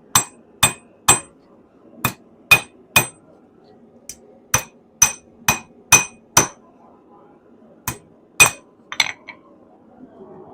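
Hand hammer striking a hot stainless steel rod to straighten it: about fourteen sharp, ringing blows in groups of three to five, with short pauses between the groups.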